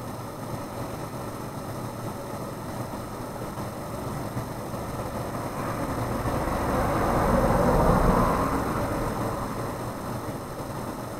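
A vehicle passing by: a steady background rumble swells to a peak about eight seconds in and then fades away.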